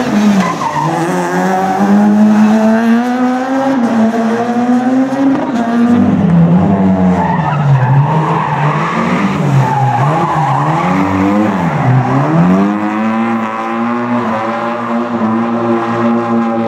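Rally car engine revving hard through a drift, its pitch held high, then dropping sharply and climbing back three times about two seconds apart, with tyres skidding on the surface.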